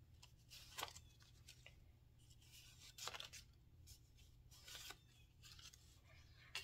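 Faint rustling of paper dollar bills being counted out and flipped through by hand, a few short rustles about a second or two apart.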